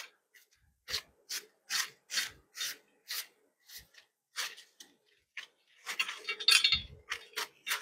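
Protective plastic wrapping being pulled and rubbed off a crash bar by gloved hands: a series of short rustling rasps about two a second, then a denser, louder stretch of crinkling about six seconds in.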